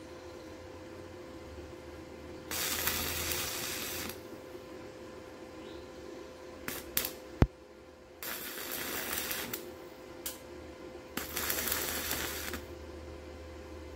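Forney Easy Weld 140MP welder striking an arc on stainless steel rods: three short welds, each a burst of crackling hiss about a second and a half long, tacking rods of a pellet basket. A few clicks and one sharp metallic knock come between the second and third... between the first and second welds, over a steady hum.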